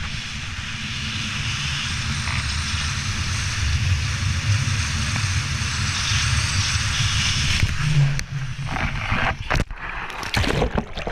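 Steady rush of skis running fast over snow, with wind on the pole-mounted GoPro's microphone. About eight seconds in, the skier hits the slush pool: splashing and sloshing water, the sound breaking up as spray washes over the camera.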